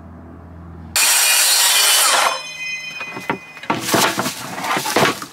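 Tool work on wood: about a second in, a power tool runs loudly for about a second and a half, then a series of irregular strokes and knocks on wood follows.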